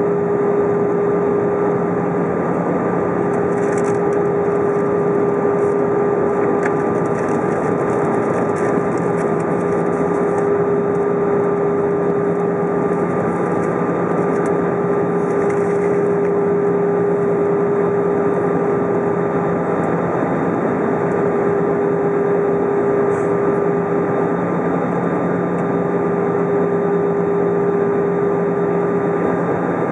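Airbus A320 cabin noise heard at a window seat over the wing: a steady rush of jet engine and airflow with a constant hum, as the airliner descends on arrival.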